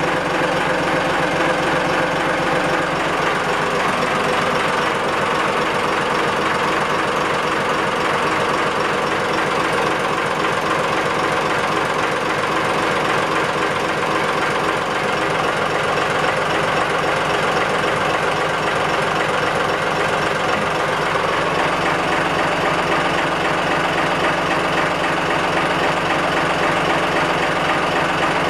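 Yanmar 6GH-UT six-cylinder marine diesel engine running steadily, heard close up in the engine compartment, with an even, unchanging clatter.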